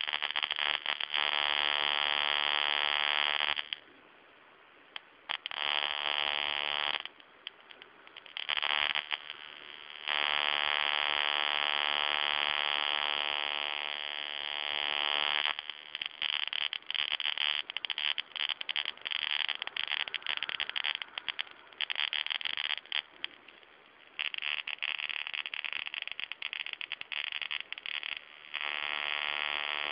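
Electric shocker's high-voltage spark discharge, a loud harsh buzz fired in bursts of a few seconds with short gaps between, breaking up into irregular crackling sputters through the middle part before running steadily again near the end. The sparks jump a gap of about 5–7 mm.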